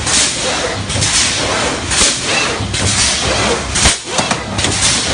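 Steel truss welding machine running: repeated hissing bursts over a low hum, with a sharp knock about four seconds in.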